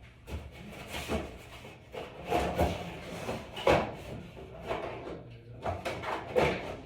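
Irregular knocks, clatters and scrapes of raceway parts being handled and set in place by hand.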